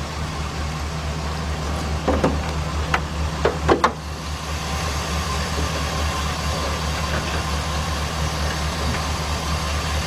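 2005 Chevy Express G2500 van's V8 idling steadily with the hood up; the engine has a P0300 random cylinder misfire code and runs rough. A few short knocks and clatters sound between about two and four seconds in.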